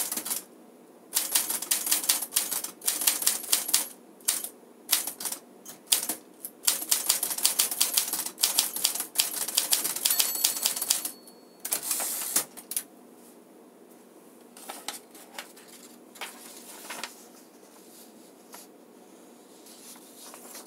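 1956 Smith-Corona Silent Super manual typewriter being typed on at speed, a fast run of key and typebar strikes. About ten seconds in the margin bell dings once, and the carriage is returned. Fewer, lighter clicks follow before the typing stops.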